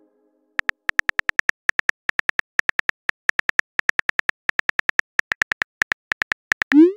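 Simulated phone-keyboard typing clicks, a rapid, slightly uneven run of several taps a second as a text message is typed out, ending near the end with a short rising swoosh as the message is sent.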